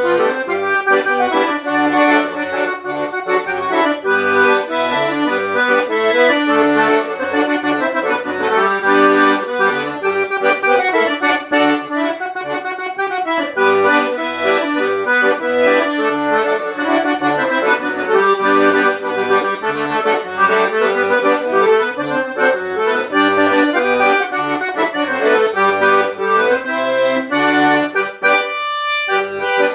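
Instrumental music: a quick, busy melody over a rhythmic pattern of bass notes, briefly thinning out near the end.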